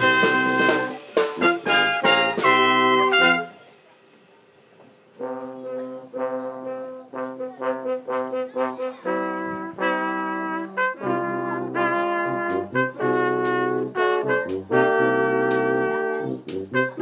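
Brass quintet of trumpets, French horn, low brass and tuba with a drum kit playing a medley arrangement. A loud passage with drum and cymbal hits breaks off about three and a half seconds in. After a pause of under two seconds the band starts a new section of short, detached notes over the drums, which grows fuller toward the end.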